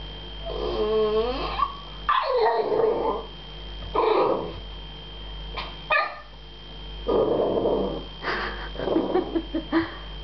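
American Staffordshire Terrier puppy barking and yipping in a high voice, a string of short separate barks that opens with a whine. These are play barks at a cat, the sound of a puppy frustrated that the cat won't come down to play.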